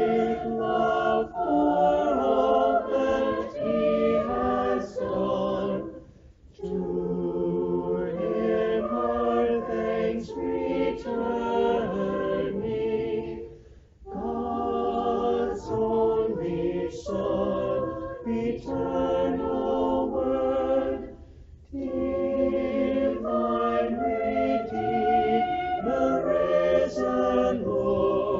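Church choir singing in four phrases of about seven seconds each, with short breaks between them.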